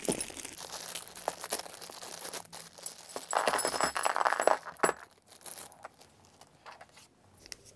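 Small clear plastic zip bag crinkling as it is opened and handled, then a few light clinks as the kit's metal parts (clevis, spacers, pin and nuts) are tipped out onto the table.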